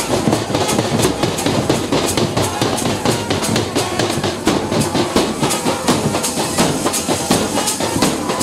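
Fast, steady percussion: drums beaten at about five strokes a second with a clattering edge, played loud and without a break.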